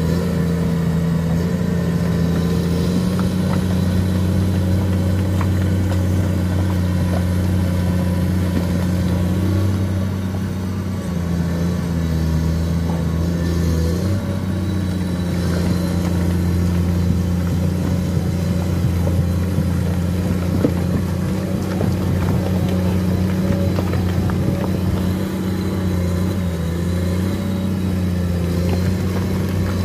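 Komatsu PC210 excavator's six-cylinder diesel engine running steadily under load as the machine crawls on its tracks through thick, sticky mud. The engine note dips and picks up again about halfway through, with scattered light knocks.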